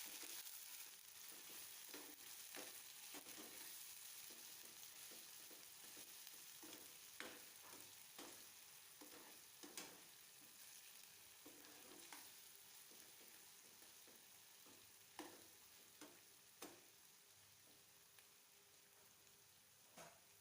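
Onion and spice paste frying in oil in a pan with a faint sizzle that slowly dies down, while a spatula stirs it, scraping and clicking against the pan now and then.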